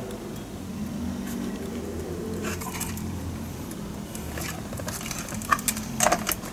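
Plastic clicks and knocks as a steering-wheel airbag module and its connectors are handled and pushed into place, a few sharp ones near the end, over a low steady hum.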